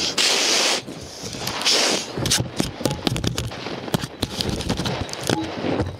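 A person blowing hard to clear sand away: three short, loud puffs of breath close to the microphone in the first two seconds. These are followed by a run of sharp crackling clicks over wind rumble.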